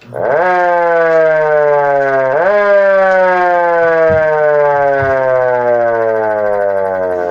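Model L siren blipped on twice: each time it rises sharply in pitch to a loud wail, then winds down in a long slow falling tone, the second wind-down still going at the end.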